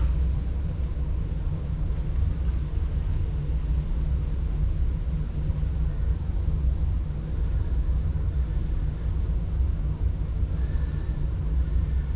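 Small electric water pump running with a steady low hum.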